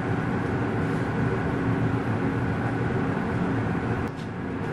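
Steady mechanical drone of commercial kitchen ventilation, with a faint click about four seconds in.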